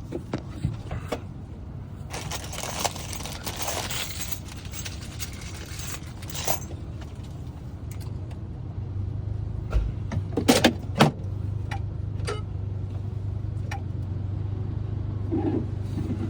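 Keys and metal key blanks clinking and rustling as they are handled, with a few sharp metallic clicks. A steady low hum starts about nine seconds in.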